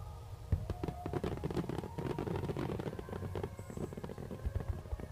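Fireworks going off: a rapid run of pops and crackles, with a few heavier booms about four and a half seconds in, over background music with held notes.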